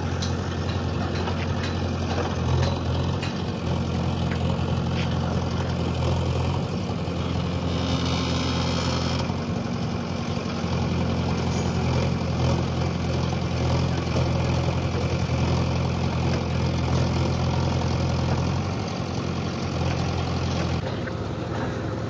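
JCB 3DX backhoe loader's diesel engine running steadily while the backhoe arm digs soil on a riverbank, with a brief hiss about eight seconds in.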